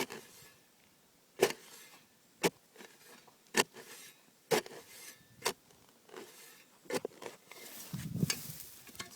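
A series of sharp knocks or clicks, roughly one a second, then a brief scraping rustle near the end.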